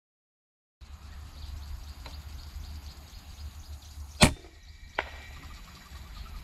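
Wind rumbling on the microphone, then the sharp report of an FX Impact M3 PCP air rifle firing a 40-grain ZAN slug at about 870 fps. About three-quarters of a second later comes a fainter crack: the slug's impact about 110 m downrange.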